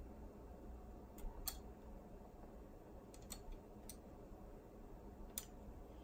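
A handful of short, light clicks of small metal and plastic parts as a boombox cassette mechanism is worked on by hand with a small tool. The sharpest pair comes about a second and a half in, with scattered others, over a faint low hum.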